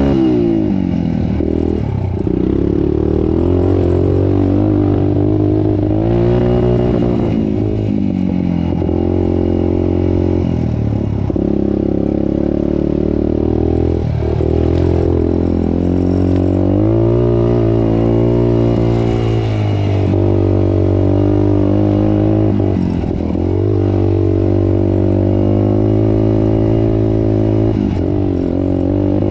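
Dirt bike engine running hard while being ridden, its pitch rising and falling again and again as the throttle opens and closes, with a few short knocks along the way.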